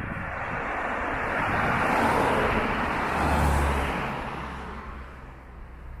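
A car passing on the road: tyre and engine noise swells to a peak about halfway through, then fades away.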